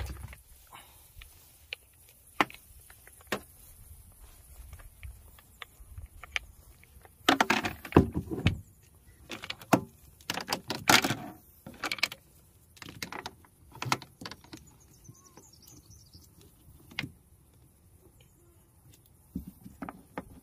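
Hobie Mirage pedal drive being handled and fitted into a kayak's drive well: scattered clicks, rattles and knocks of plastic and metal. There are louder bursts of clatter about seven and ten seconds in.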